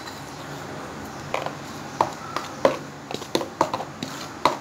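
Hands mixing dry gram flour and rice flour with spice powders in a bowl: irregular light taps and clicks of the hand working the powder against the bowl, over a low steady hum.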